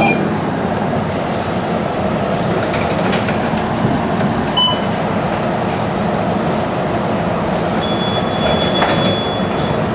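Cabin noise inside a Mercedes-Benz O405 city bus with its diesel engine running, a steady rumble. Air hisses twice, and near the end a steady high warning beep sounds for about two seconds as the exit door closes.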